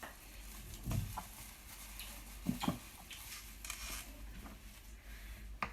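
Plastic wrap rustling as it is peeled off a chilled chocolate biscuit cake, with a few soft knocks.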